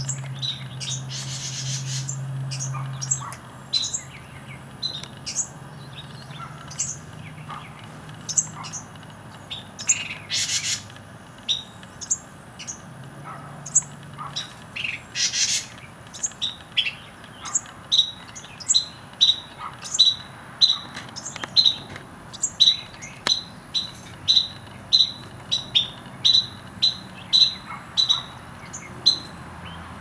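Carolina wren fledglings calling with short, high chirps that drop in pitch, scattered at first and then a steady series of about two a second in the second half, with a few longer harsh calls. A low hum sits under the first few seconds.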